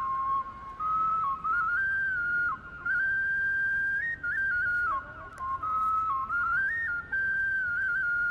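Background music: a slow solo flute melody of held high notes stepping up and down, with short gaps between phrases.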